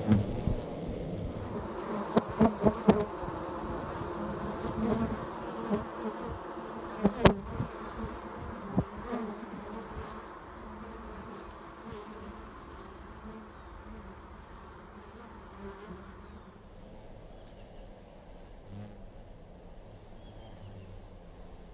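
A honeybee colony buzzing at its tree-hollow nest, many bees humming at once with a wavering drone, broken by a few sharp clicks two to three seconds in and again around seven and nine seconds. The buzz turns softer in the last few seconds.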